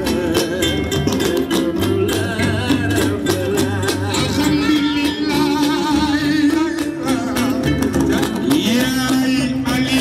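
Senegalese band music with singing: a voice singing with wavering vibrato over guitar, bass and dense hand percussion.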